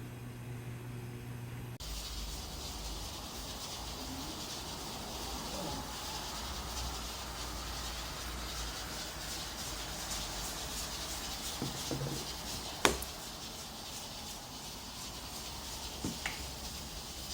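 A low steady electrical hum that cuts off abruptly about two seconds in, replaced by a steady high hiss, with a single sharp click near the end.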